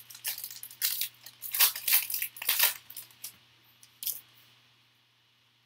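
Foil wrapper of a football trading-card pack being torn open and crinkled by hand: a quick run of crackling rustles through the first three seconds, and one more at about four seconds.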